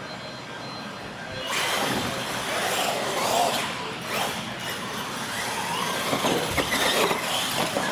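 Mega-class radio-controlled monster trucks racing side by side. About a second and a half in, their motors start up with a dense whirring rush, and the motor whine rises and falls as they run down the track.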